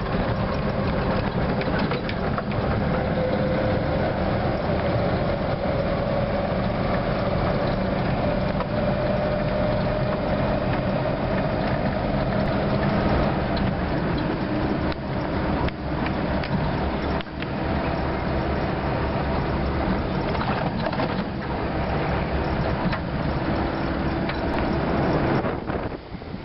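Old military four-wheel-drive driving along a rough sandy track, heard from on board: the engine and drivetrain run steadily, with a whine that climbs slowly in pitch over the first half. Knocks and rattles from the body come through as it goes over bumps.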